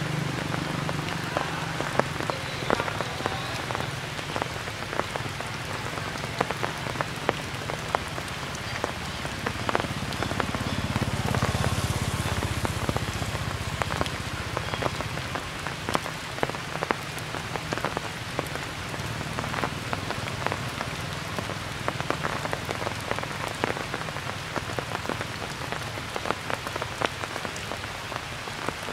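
Steady rain, with many separate drops striking sharply close to the microphone. A low rumble swells and fades about ten to fourteen seconds in.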